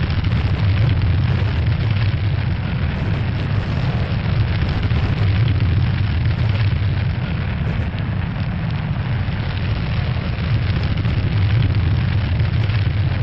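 Sound effect of a capsule's atmospheric entry: a loud, steady low rumble with a rushing hiss over it, like a burning fireball, without a break.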